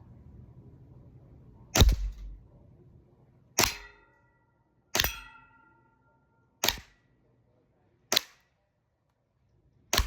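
Six shots from a WE M92 "Biohazard" Beretta airsoft pistol (350 fps), each a sharp crack, spaced about a second and a half apart. The first is the loudest, and a couple ring on briefly.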